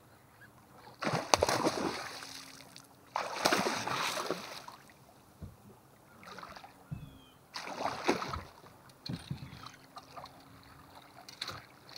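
A small hooked muskie thrashing at the surface beside an aluminium boat as it is played and netted: a series of about six separate splashes, the two loudest in the first four seconds.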